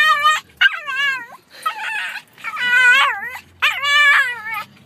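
Small fluffy dog "talking": a run of about five drawn-out, yowling vocalizations whose pitch wavers up and down, with short breaks between them.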